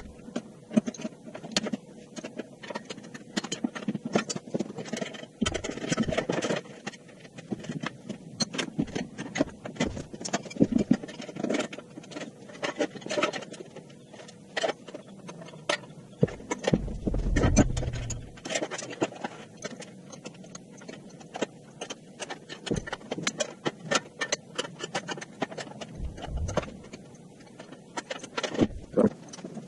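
Sped-up workshop assembly noise from building a CNC plasma table: a rapid, irregular clatter of clicks and knocks from metal parts and hand tools, with a short low rumble about two-thirds of the way through.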